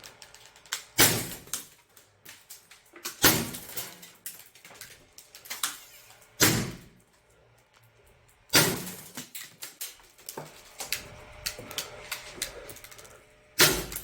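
T4E HDR50 CO2 revolver firing five shots a few seconds apart, each a sharp crack followed by scattered clicks and rattles as the 3D-printed slugs loaded with steel balls strike the target cups.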